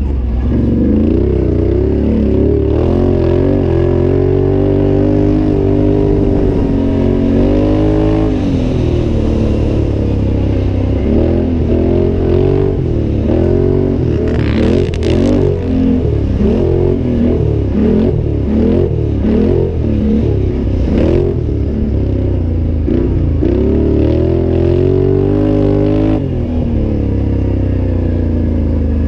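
Can-Am Outlander 800 ATV's V-twin engine running hard under racing load. Its pitch climbs and drops again and again as the throttle is worked, with a long climb early and a run of quick surges in the middle.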